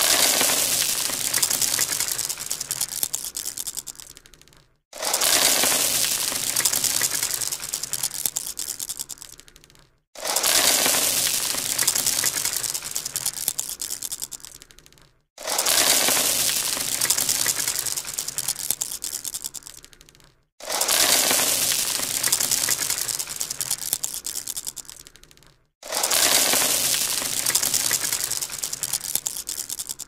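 Marbles clattering against each other in a dense rush of clicks. Each rush starts abruptly and dies away over about four and a half seconds, and the same burst repeats about every five seconds, six times over.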